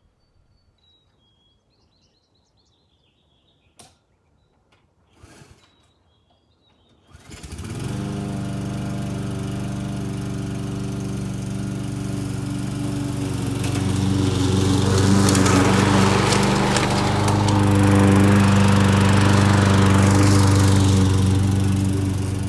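Briggs & Stratton Quantum single-cylinder four-stroke engine on a Craftsman push mower: a first pull fails, then the engine catches on a pull-start about seven seconds in and runs steadily, now that its valve timing is corrected. From about halfway it grows louder as the mower cuts through long grass.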